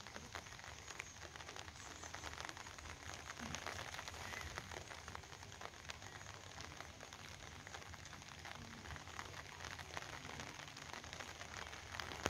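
Steady rain falling, a faint even hiss dotted with many small drop ticks, with one sharper tick near the end.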